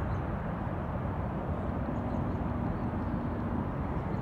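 Steady low rumble of highway traffic, with a faint hum running through it.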